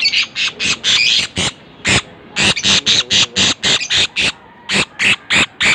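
Philippine hanging parrots (colasisi) giving shrill, rapid chirping calls, several a second, in quick runs broken by a couple of short pauses.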